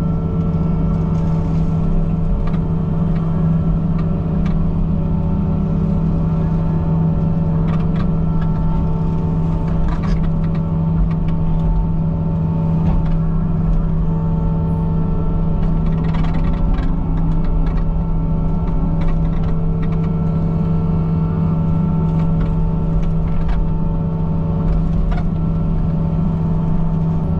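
Excavator engine and hydraulics running under load, driving a boom-mounted brush mower head through dry ditch grass and reeds, heard from inside the cab. A steady drone with a held whine, and scattered sharp ticks.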